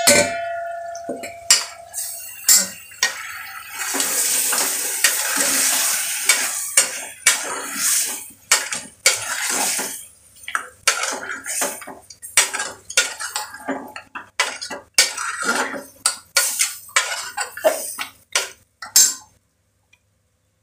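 A steel ladle scrapes and clinks against the inside of a metal pressure cooker as chicken pieces are stirred while they fry in oil. Frying sizzle can be heard under the scraping, strongest in the first half. The scraping stops just before the end.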